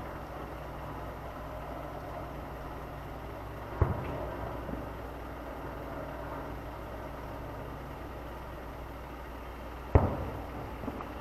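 Two distant fireworks shells booming about six seconds apart, each followed by a rolling echo, over a steady low hum.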